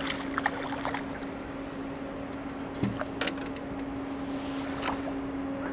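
Scattered clicks and light knocks of hands and fishing gear against a small boat's hull, with a dull thump about three seconds in. Underneath runs a steady faint low hum and high hiss.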